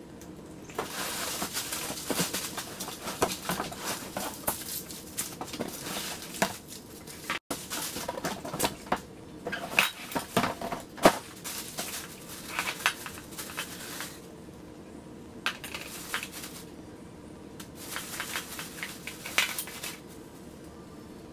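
Rustling plastic wrap and crumpled packing paper, with clinks and knocks of stainless steel long-tube exhaust headers being unpacked from their box. The handling comes in bursts, busiest in the first half or so.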